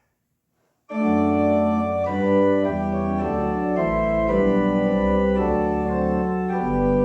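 Church organ starts suddenly about a second in, playing a hymn introduction in sustained chords over a deep pedal bass, the chords changing every half second or so.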